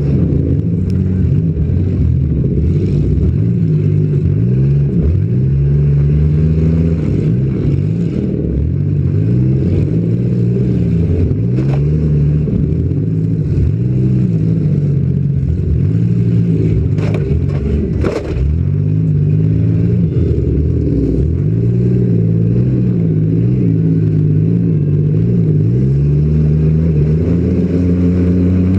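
Demolition derby car's engine, heard from right over its open engine bay, revving up and dropping back again and again as the car is driven hard around the arena. A few sharp knocks break in about 12 seconds and about 17 to 18 seconds in.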